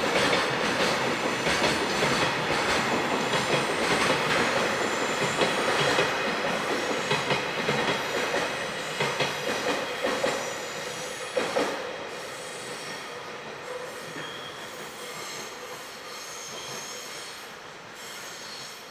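Freight train rolling past with its wheels squealing against the rails and clicking over rail joints; the sound fades away after about twelve seconds.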